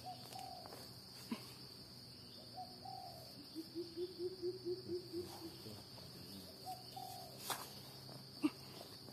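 Steady high insect drone in dry forest, with a bird's short call repeated every few seconds and, in the middle, a fast run of about eight low notes. A few sharp knocks from a hand hoe digging into the soil; the loudest comes near the end.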